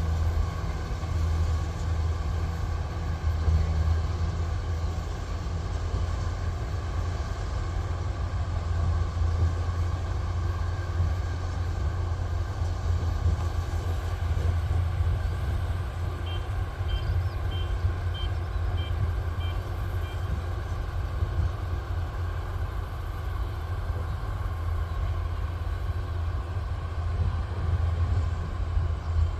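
Kubota rice combine harvester's engine running steadily with a deep drone. About halfway through, a string of about seven short, high beeps sounds at an even pace, like a reversing alarm.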